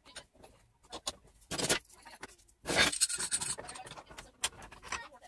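Metal clamps being fitted and tightened onto a glued-up wooden board: a series of clicks and knocks with scraping rubs, the longest and loudest scrape about three seconds in.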